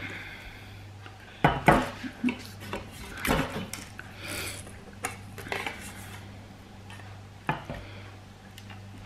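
Pliers prying metal backing tabs out of a wooden picture frame: irregular sharp metallic clicks and clinks as the tabs are gripped, worked free and dropped onto the tabletop.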